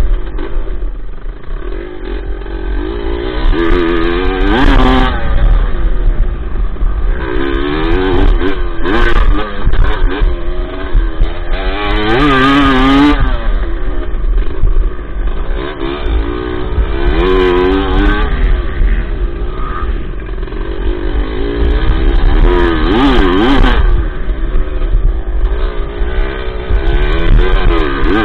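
Dirt bike engine heard close up from the bike being ridden, revving up and falling back again and again as the throttle is opened and closed through the course.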